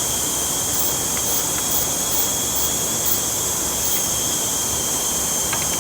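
Steady background hiss and low hum, with a few faint light clicks scattered through it.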